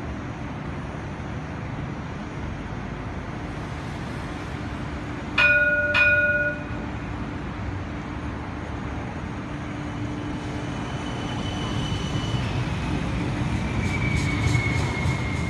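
Cincinnati Bell Connector streetcar (a CAF Urbos 3 light-rail car) sounding two rings of its warning bell about five seconds in. Then its running rumble and a high electric whine grow louder as it passes close by, the whine sliding down in pitch.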